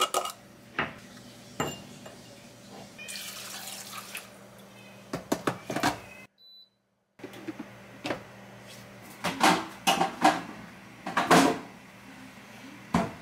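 Kitchen handling sounds: plastic and silicone baby-food containers knocked and set down on a counter, water poured into a bottle warmer, and a run of louder clunks near the end as a freezer drawer is opened.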